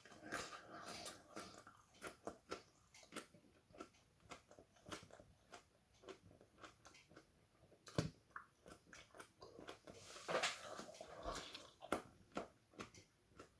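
A person chewing a fresh, thick-walled Frostbite chili pod: faint, irregular crunches and wet mouth clicks, busier from about ten seconds in.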